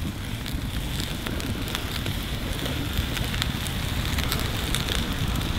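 Open cooking fire crackling, with frequent small pops over a steady noise.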